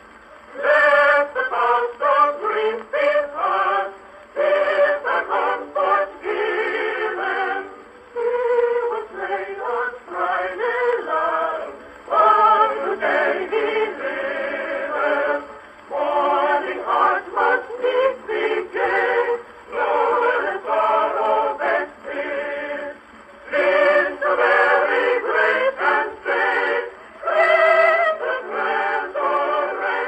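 An Edison Blue Amberol cylinder record playing through a phonograph horn: voices singing a carol in phrases, with the thin, boxy sound of an early acoustic recording, nothing deep and nothing bright.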